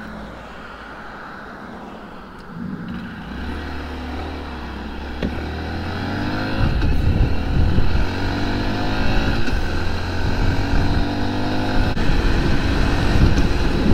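Honda Monkey's small single-cylinder four-stroke engine, low and quiet at first, then pulling away and accelerating, its revs rising several times as it shifts up through the gears.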